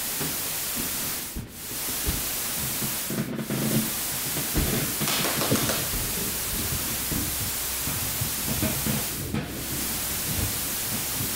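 Television static: a steady, loud hiss from an untuned TV that drops out briefly three times.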